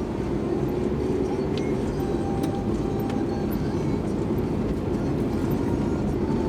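Steady running and road noise of a moving vehicle: a continuous low rumble with no marked change.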